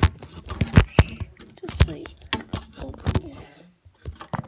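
Handling noise from a phone being moved and propped into place: irregular loud knocks and clicks with rubbing and scraping against the microphone.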